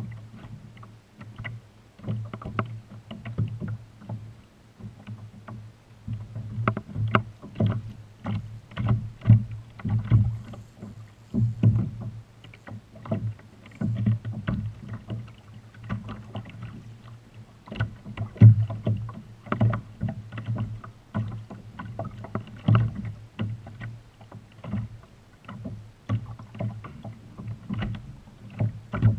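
Small waves slapping and knocking against a fishing kayak's hull, an irregular run of thumps several times a second with some louder slaps now and then.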